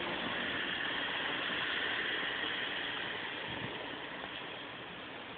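Heavy rain falling, a steady hiss that eases a little after about three seconds.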